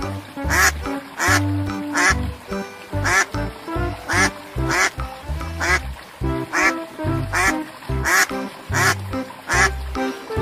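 Ducks quacking over and over, a short loud call roughly every second, together with music that has a steady low bass line.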